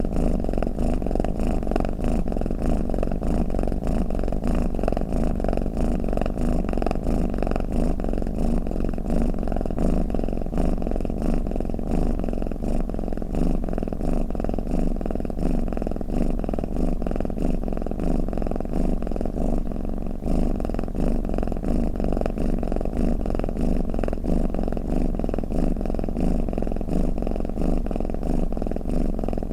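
Domestic cat purring steadily and without a break, a low, fast-pulsing purr.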